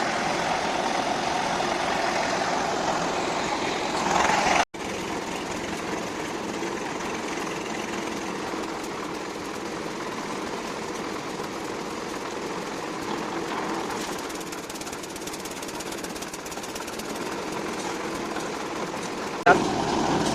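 Construction machinery engine running steadily during a roof-slab concrete pour, with an instant's dropout about four and a half seconds in and a sudden louder sound near the end.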